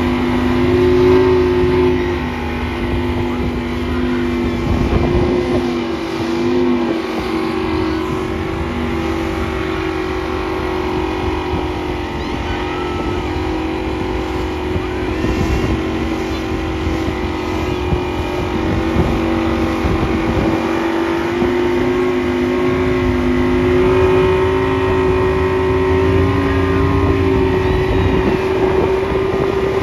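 Towing speedboat's engine running at a steady high speed, with rushing water and wind noise.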